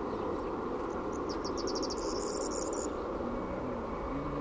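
Steady engine rumble of a jet airliner on final approach, just before touchdown. About a second and a half in comes a short, rapid, high chirping trill, like a bird or insect.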